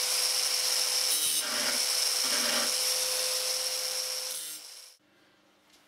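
Angle grinder with a grinding disc sharpening the cutting edge of a steel rotary mower blade: a steady high whine over a grinding hiss. It fades out about four and a half seconds in.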